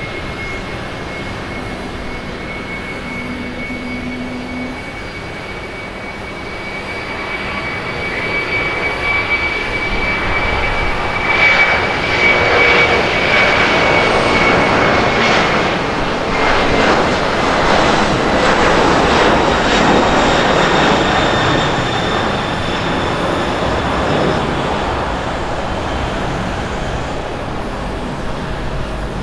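Boeing 767-300ER's twin General Electric CF6-80C2 turbofans at takeoff power as the jet rolls down the runway and lifts off. A steady high fan whine drifts slightly upward in pitch while the roar builds to its loudest about halfway through as the jet passes, then eases as it climbs away.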